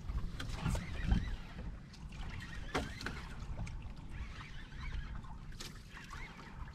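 Low, uneven rumble of a small fishing boat on the water, with scattered knocks and clicks.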